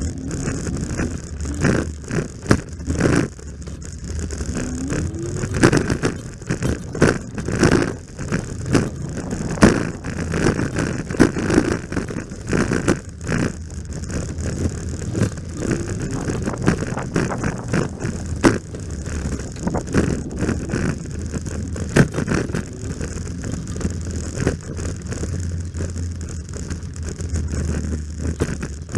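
Heavy wind rumble on the microphone of a rider on a T112 electric scooter, with frequent sharp knocks and rattles from riding over the path.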